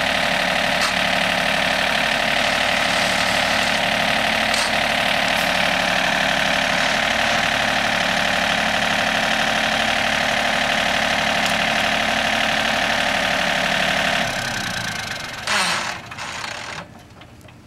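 Three-cylinder diesel engine of a John Deere 4300 compact tractor running steadily as the tractor is driven slowly. Near the end the engine sound drops off sharply, with one brief sharp sound just before it falls quiet.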